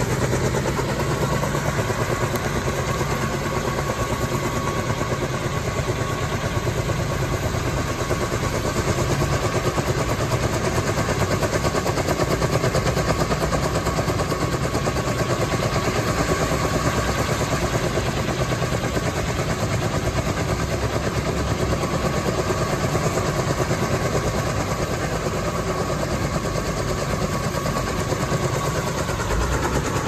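Kaman K-MAX intermeshing-rotor helicopter flying slowly with an air-conditioning unit slung on a long line: a steady, rapid rotor chop under a steady turbine whine.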